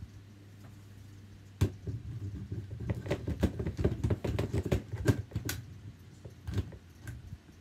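A quick, irregular run of small clicks and knocks, starting about one and a half seconds in and thickest in the middle, over a faint steady low hum.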